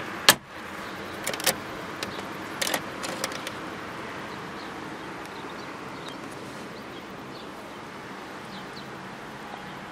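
The glovebox lid of a 2000 Mitsubishi Dion snaps shut with a sharp click about a third of a second in. A few lighter clicks and knocks follow, then a steady background hiss.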